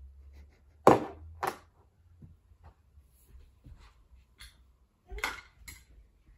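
Sharp knocks and clatter of a toddler handling hard toys: two loud knocks about a second in, scattered light ticks, then two more knocks near the end.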